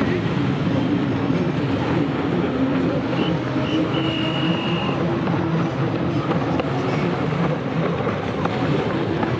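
Racing jet skis (personal watercraft) running at high revs: a continuous engine drone whose pitch wanders as the riders throttle through the course, mixed with the hiss of spray and water.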